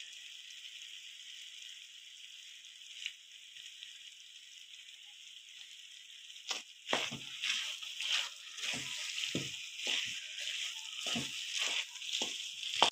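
Semolina halwa sizzling softly in a metal pan on a low flame, a steady faint hiss. From about halfway a spatula scrapes and stirs through it in uneven strokes, roughly one or two a second.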